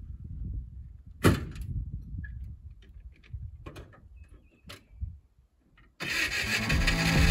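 The GAZ-69's flathead straight-four engine running with a low, uneven rumble, with a sharp knock about a second in and a few lighter clicks after. Music starts near the end.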